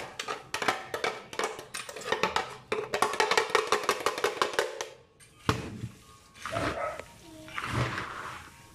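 A utensil scraping and clacking inside a glass blender jar in rapid clicks, knocking fried chile de árbol out onto peanuts; the clicking stops about five seconds in, giving way to quieter, softer sounds.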